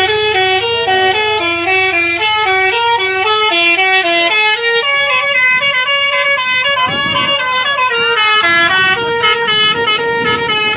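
Indonesian 'telolet' musical horn (a Basuri horn) on a bus, playing a quick tune of short stepped notes over and over without a break.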